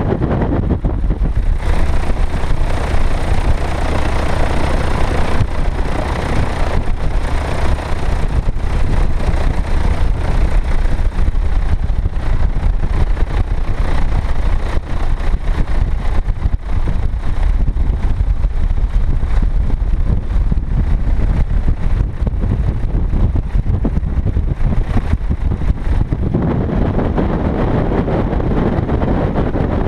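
Single-engine light aircraft's piston engine running at low power while taxiing, with heavy wind rumble on the microphone; the noise gets fuller near the end.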